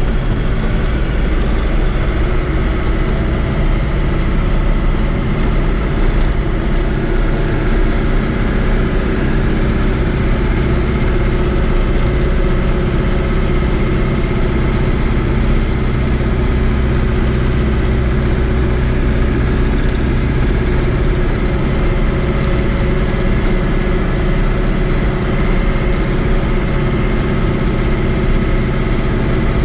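Fiat 80-90 DT tractor's four-cylinder diesel engine running steadily as the tractor drives along a gravel road, heard from inside the cab.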